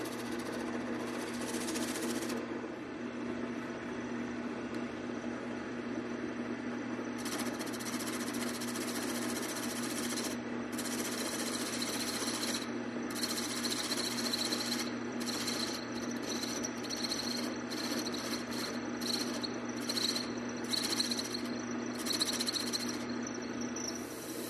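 Wood lathe running with a steady motor hum while a hand-held turning tool cuts a spinning wooden spindle, the shaving sound starting and stopping as the tool touches and leaves the wood. Through the second half a thin high whine rings with each cut.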